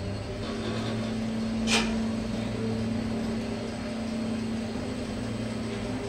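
Schindler passenger lift travelling up two floors: a steady drive hum starts just after the start and stops near the end, with a single click a little under two seconds in.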